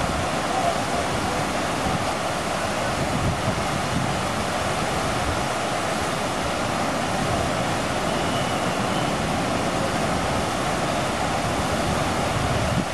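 Steady rush of running water at a water park: an even noise with no pauses.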